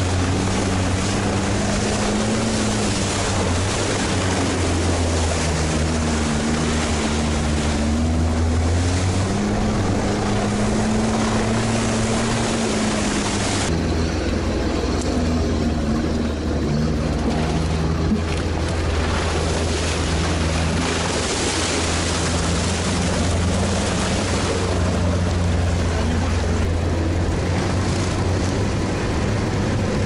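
Sherp all-terrain vehicle's diesel engine running, its pitch rising and falling with the revs, over a steady rushing noise. The high part of the rushing drops away suddenly about 14 seconds in.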